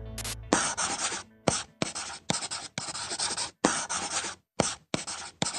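Chalk writing on a blackboard: about nine short, scratchy strokes, each starting with a tap of the chalk, with brief pauses between them.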